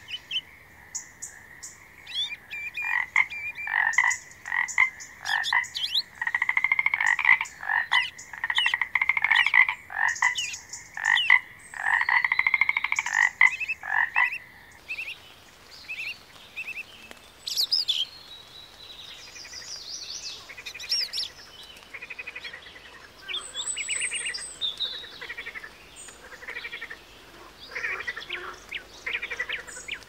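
Frogs croaking in a dense run of repeated calls over a steady high-pitched drone; about halfway through the sound changes to scattered, shorter and higher calls.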